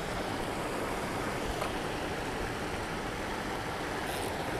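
Steady rush of water pouring over a low spillway dam and into the foaming pool below.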